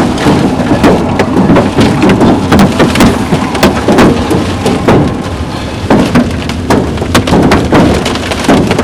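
Giant hailstones pounding a vehicle's windshield and body, heard from inside the cabin: a dense, irregular barrage of hard knocks, several a second, over a steady roar of hail and rain. The hail is big enough to be cracking the windshield.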